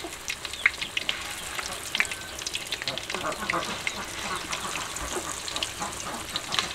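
Battered pork pieces deep-frying in a wok of hot oil: a steady sizzle full of quick crackles and pops. A metal utensil stirs through the oil about midway.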